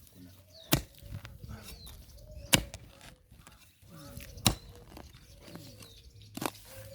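A digging tool striking the ground four times, one hard chop about every two seconds, cutting into soil to lift out grass with its roots.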